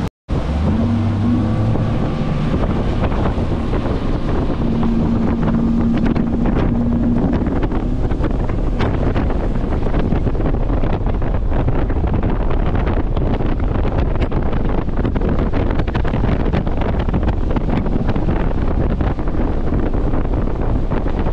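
Bass boat's outboard motor running at speed across calm water, with heavy wind rush on the microphone. A steady engine tone shows through during the first several seconds, then the wind noise covers most of it.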